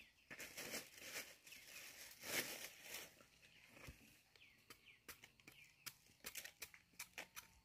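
Machete blade scraping and hacking at the skin of a freshly dug cassava root, with rustling in the first few seconds. It turns to a run of quick, light clicks from short knife strokes in the second half.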